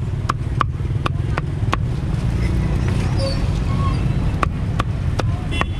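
Meat cleaver chopping grilled duck on a thick wooden chopping block: a run of sharp knocks about three a second for the first two seconds, a pause, then four more near the end. A steady low rumble of street traffic runs underneath.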